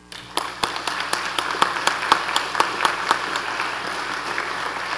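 An audience applauding: many hands clapping, starting about half a second in and easing off slightly toward the end.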